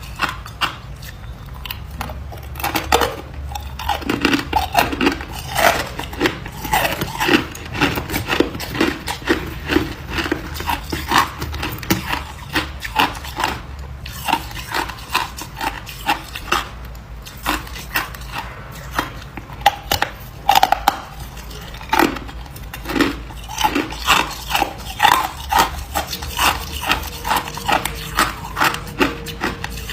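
Ice being bitten and chewed: a fast, irregular run of sharp crunches that goes on without a break.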